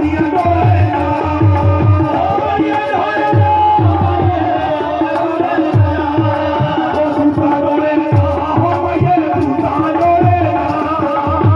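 Live Himachali folk music: drums beating a steady, repeating rhythm under a held, wavering melody.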